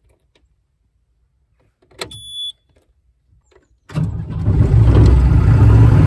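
A New Holland LS180 skid steer's diesel engine is started: a click and a short high beep, then about two seconds later the engine catches suddenly and runs steadily.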